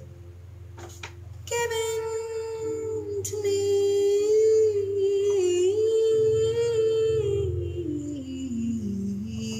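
A woman singing one long wordless note, coming in about a second and a half in, held with a slight waver and sliding down near the end, over a soft backing track of low sustained chords.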